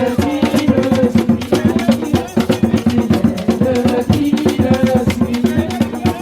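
Instrumental passage of a hymn: fast, evenly paced drum and percussion strokes over held notes.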